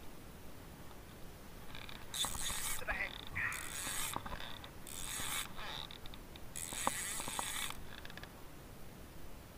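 Spinning reel being cranked in four short bursts, each under a second, as line is wound in during a slow-jigging retrieve.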